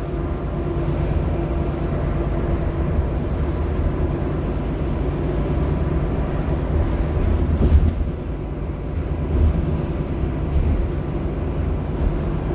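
Nova Bus LFS articulated hybrid bus under way, heard from inside: its Cummins ISL9 diesel and Allison H50 EP hybrid drive make a steady low rumble. A faint steady high tone runs through it, and there is a short bump about eight seconds in.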